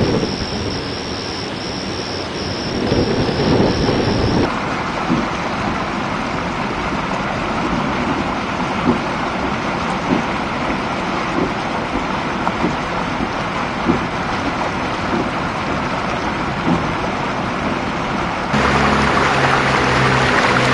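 Steady storm noise of wind and rain, with a few short knocks. About two seconds before the end it gets louder and a vehicle engine's low steady hum joins in.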